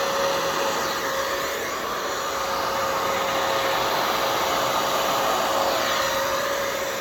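Hair dryer running steadily on a high setting, a steady rushing airflow with a constant motor whine, blowing wet paint across a canvas.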